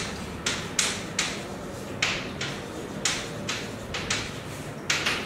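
Chalk writing on a blackboard: a string of short chalk strokes, about two a second.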